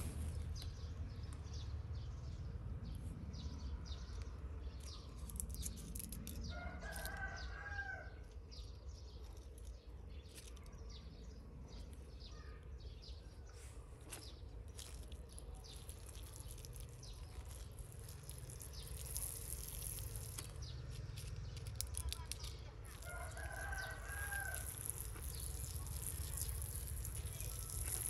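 A rooster crowing twice, once about seven seconds in and again later on.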